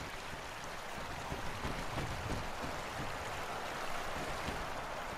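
A steady rushing noise with no distinct events, like moving water or air.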